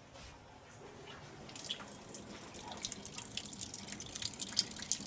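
Kitchen faucet spitting and splashing in irregular spurts as water comes back through it after the supply is turned on. The spurts start about a second and a half in and come faster and stronger toward the end.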